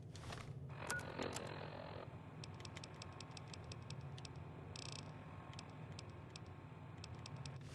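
A run of faint, light clicks, irregular and several a second, over a steady low hum, with a short rustling noise about a second in.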